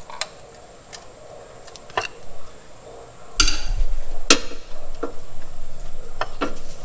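Screwdriver prying at the water pump on a Honda 3.5L V6 engine: scattered sharp metal clicks and knocks, louder and more frequent from about halfway through.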